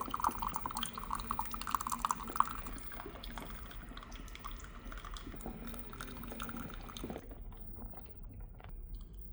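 Hamilton Beach The Scoop single-serve coffee maker brewing: hot coffee streaming and dripping into a mug. The flow dies away about seven seconds in, leaving a few scattered drips as the brew cycle ends.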